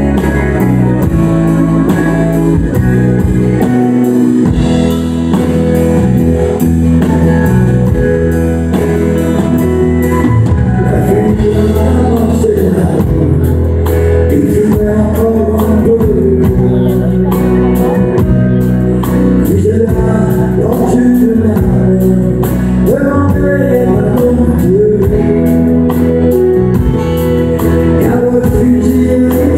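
Live country music: a male singer with an acoustic guitar and a backing band. The first ten seconds or so are instrumental, and the singing comes in about twelve seconds in.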